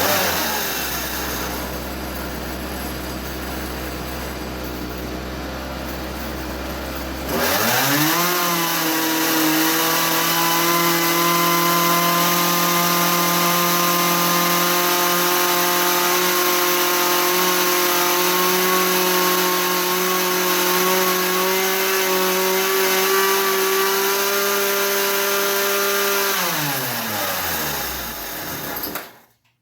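Poulan Pro 210 chainsaw's two-stroke engine running at low speed, then revved up quickly about seven seconds in and held at a steady high speed. Near the end it winds down and cuts out abruptly. This is a saw that won't hold an idle and has stopped running well, which the owner suspects is fuel starvation from the pickup sitting up off the bottom of the tank.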